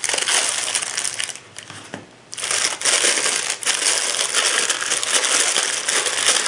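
Clear plastic bag crinkling loudly as it is handled to unwrap a rangefinder: a short spell at the start, a brief lull, then a longer steady spell from about two seconds in.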